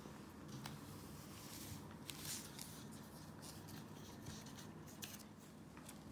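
Faint scraping and rustling of a paintbrush spreading glue over torn paper on a wooden coaster, with a few light clicks.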